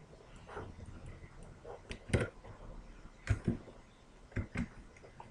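Several sharp clicks of a computer mouse and keyboard, about five spread over a few seconds, the loudest about two seconds in.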